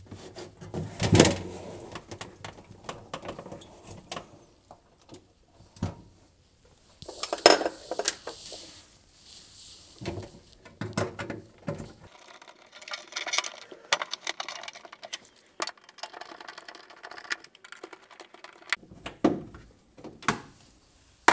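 Sheet-metal refrigerator back panel and its screws being handled: scattered metallic knocks and clinks, with a stretch of rapid, scratchy ticking in the middle as a nut driver turns a screw into the panel.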